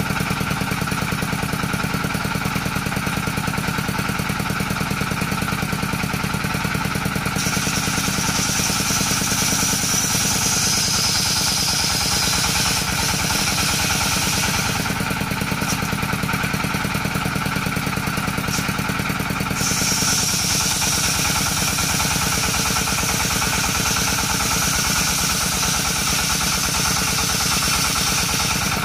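Circular saw running steadily with a pulsing engine note; a higher whine joins it about seven seconds in until about fourteen seconds, and again from about twenty seconds on, as the blade rips coconut wood.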